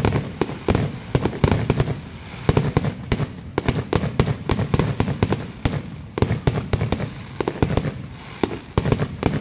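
Aerial fireworks going off in a rapid barrage: many shell bursts, several loud bangs a second, overlapping with crackling.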